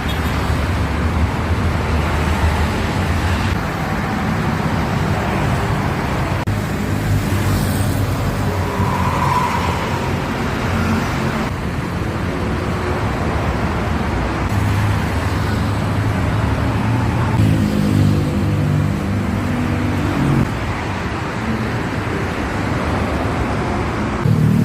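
Road traffic with buses and cars driving past, engines running. The sound changes abruptly every few seconds.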